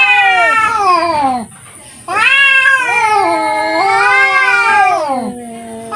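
Domestic cats yowling in a fight standoff: long wavering wails that rise and fall in pitch. One ends about a second and a half in, a second starts half a second later and runs for about three seconds, then a lower, steady held note near the end.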